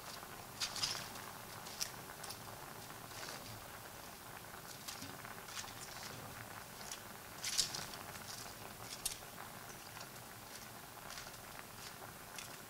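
Faint rustling and crunching of fresh pechay (bok choy) leaves being picked up by hand and dropped into a stainless steel pot, with scattered soft clicks and crackles. The loudest rustles come just under a second in and again at about seven and a half seconds.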